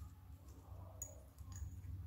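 Soft, faint sticky clicks of slime pulled and pinched between fingers, one sharper click about halfway, over a low steady hum.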